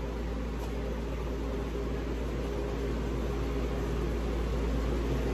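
Steady machine hum and hiss, like a running fan or ventilation unit, with a low rumble underneath and no distinct knocks, slowly growing a little louder.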